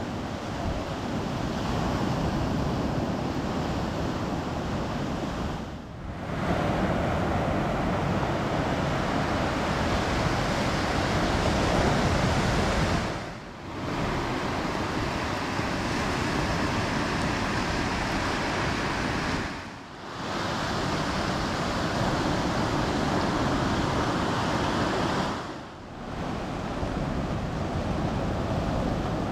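Sea surf breaking on a beach, a steady rushing wash of noise that dips briefly four times as one take fades into the next.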